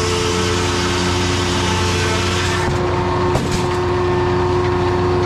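Heavy machine's engine running steadily, with a brief knock and a change in tone about halfway through.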